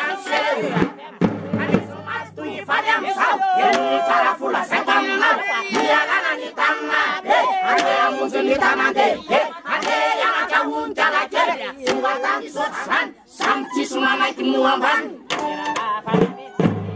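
Hira gasy troupe singing loudly together, with a bass drum struck in time.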